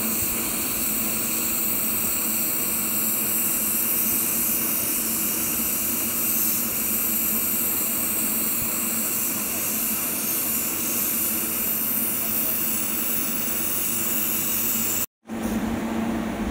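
TIG welding arc on a stainless steel root pass, a steady hiss with a low hum underneath. It cuts off abruptly near the end.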